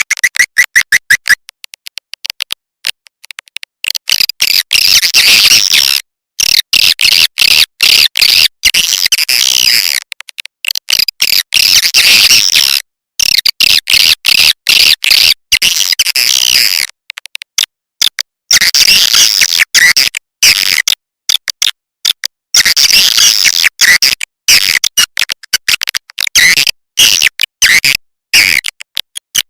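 Swiftlet lure-call recording: rapid trains of clicks mixed with high, chirping twitters, cut by many short dead-silent gaps. Loud throughout.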